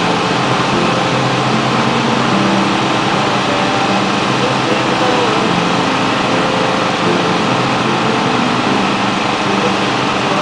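Small petrol engine of a portable hydraulic power unit for rescue tools running steadily at a constant speed, with faint voices.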